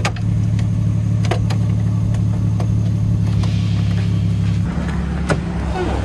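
Turbocharged 1JZ-GTE straight-six in a Toyota Chaser running steadily, with a few sharp clicks over it; its note changes about two-thirds of the way through.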